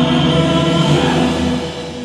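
Loud performance music: held, layered chords with a choir-like sound, easing off near the end.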